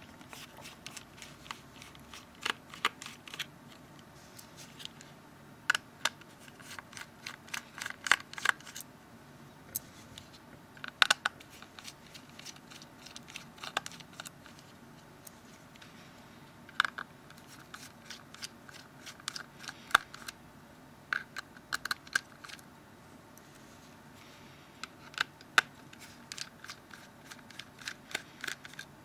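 A small T5 Torx screwdriver undoes the tiny screws in a Nokia Lumia 610's plastic frame while the phone is turned in the hand. The sound is light, irregular clicks in short clusters, with pauses between them.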